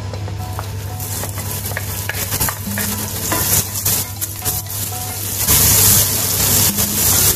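Sliced onion and garlic sizzling in hot oil as they are sautéed in a coated pot, with a wooden spoon scraping and knocking against the pan while stirring. The sizzle starts about a second in and is loudest near the end.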